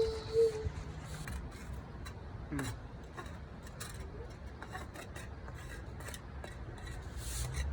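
Digging by hand for footings: a digging tool scraping and knocking in soil, in scattered short strokes and clicks.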